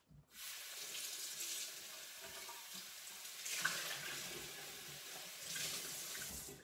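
Kitchen tap running as a blender cup is rinsed out under it. The water noise swells twice and stops near the end.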